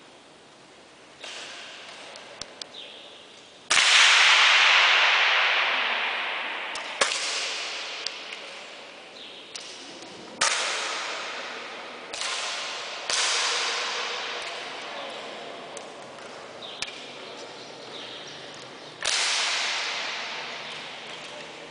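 Break-barrel air rifles firing, about seven shots at uneven intervals. Each is a sharp crack followed by a long echo in a large hall, the loudest about four seconds in. Light clicks fall between the shots.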